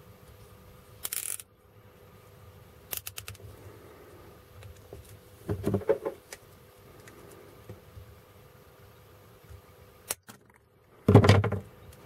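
A nylon cable tie being pulled through and tightened by hand, its ratchet zipping and clicking in short runs, mixed with handling knocks of hard plastic desoldering-gun parts. The loudest is a knock a little before the end.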